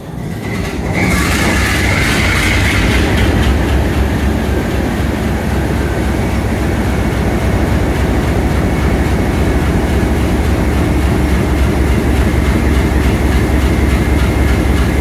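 Diesel-electric locomotive 4212's engine cold-starting in the shop: about a second in the sound swells with a rush of noise as the engine fires, then it settles into steady running with a deep rumble and a thin high whine over it.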